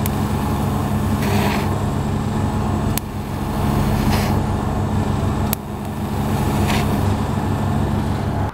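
TIG welding arc on steel threaded rods, making a steady electrical buzz as the joint is heated and filler rod is fed in to fill the notches. Three sharp clicks and a few brief hissy swells come through over it.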